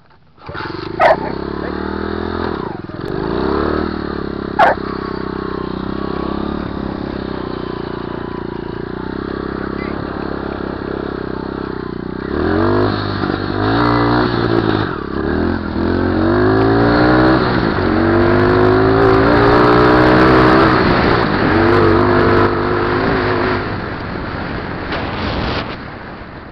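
125cc pit bike engine idling, with two sharp clicks in the first few seconds. About halfway through it revs up and accelerates hard, its pitch climbing and dropping back at each gear change, then eases off near the end.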